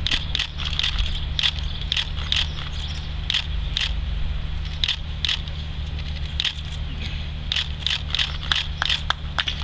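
Scattered sharp clicks at irregular intervals over a steady low hum.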